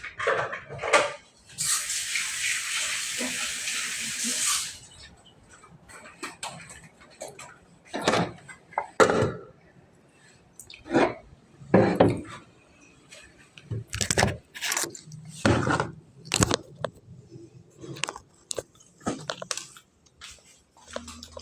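A kitchen tap runs for about three seconds near the start, then dishes, pots and utensils clink and knock on and off.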